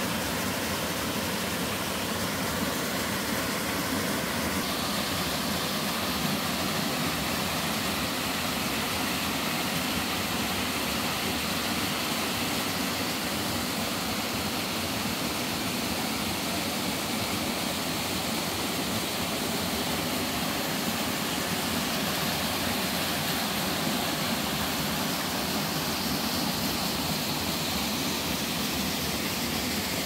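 Small mountain waterfall cascading down a rocky stream into a pool: a steady, unbroken rush of falling and splashing water.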